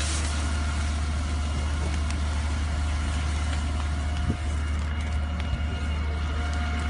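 Fire engine's pump engine running with a steady low rumble and a faint whine, over the steady hiss of the water-mist nozzle spraying. Two light knocks come a little past the middle.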